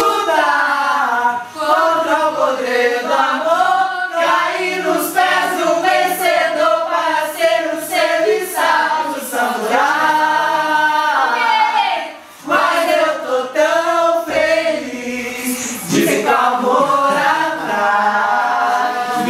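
A group of voices singing and chanting together without instruments, pitches rising and falling, with a short break about twelve seconds in.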